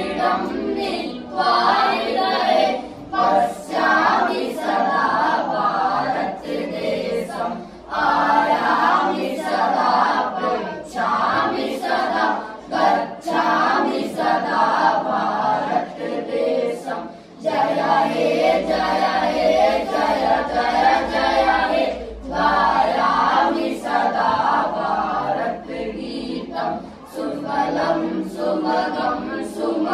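A group of boys singing a song together without instruments, in phrases separated by brief pauses for breath.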